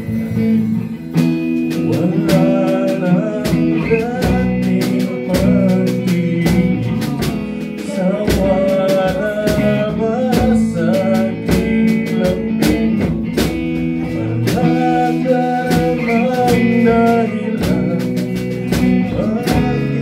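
Band rehearsal: an electric guitar played through an amplifier, with a man singing into a microphone from about two seconds in, over a steady beat.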